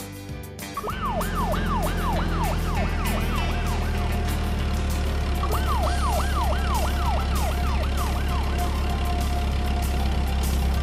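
Siren sound effect wailing in quick repeated sweeps, about three a second, in two runs with a short break near the middle. Under it is a steady low engine rumble, dubbed onto a toy utility truck with a roof beacon as it drives.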